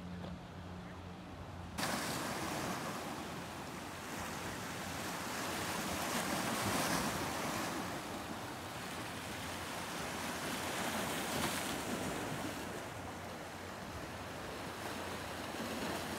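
Small sea waves washing and splashing over shoreline rocks with wind, a steady rushing surf that swells and eases. It is quieter for the first couple of seconds, then jumps suddenly louder.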